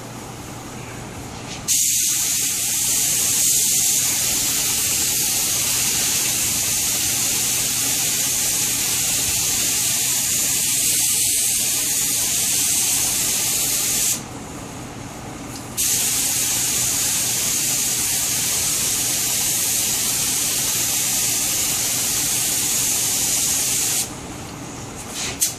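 Compressed-air spray gun with a cup underneath spraying lacquer: a loud, steady hiss that starts about two seconds in, stops for about a second and a half midway, then hisses again until shortly before the end.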